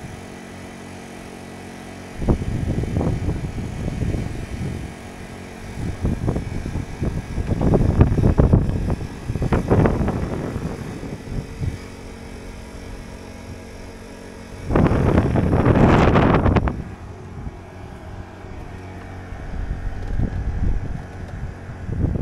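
Wind buffeting the microphone in irregular gusts over a faint steady hum, the strongest gust about fifteen seconds in.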